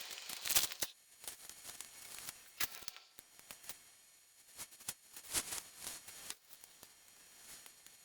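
Crinkling and rustling of plastic being handled, loudest in the first second, then scattered light clicks, taps and rustles, with another brief crinkly flurry about five seconds in.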